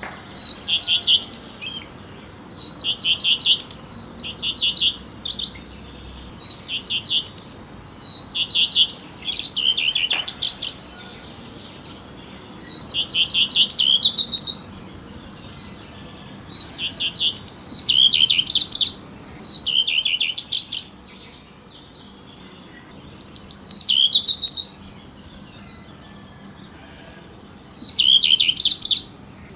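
Small songbirds chirping in short bursts of rapid, high notes, each burst about a second long, repeated every second or two.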